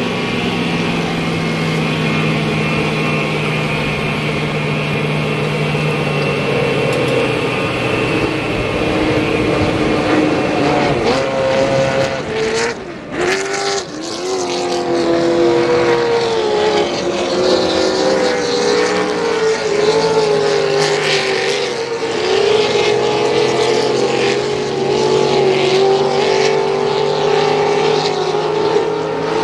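V8 race boat engines running flat out across the water, a steady loud drone whose pitch wanders up and down as the boats pass. About halfway through, the sound briefly drops away and then returns.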